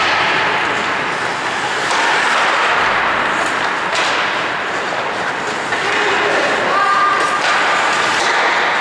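Ice hockey play: steady scraping of skate blades on the ice, with a few knocks of sticks and puck and players calling out near the end.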